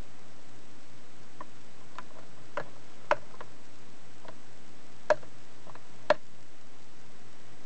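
Rotary control lever of a modified TOMIX N-DU202-CL model-railway power unit clicking through its notch positions as it is turned: a string of about ten irregular sharp clicks, the loudest about three, five and six seconds in.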